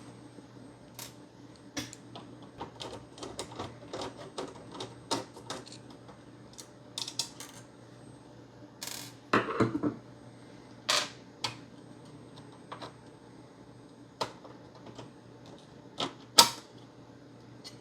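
Scattered sharp clicks and knocks of plastic clips and casing parts being pried and handled as the front piece of an Xbox One S console is taken off, with a few louder snaps about halfway and near the end.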